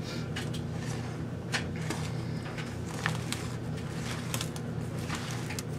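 Scattered light clicks and knocks of handling over a steady low hum.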